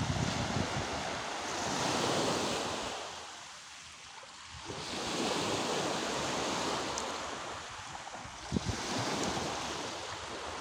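Small waves breaking and washing up a pebble beach, the wash swelling and fading in slow surges. A single brief thump a little over two seconds before the end.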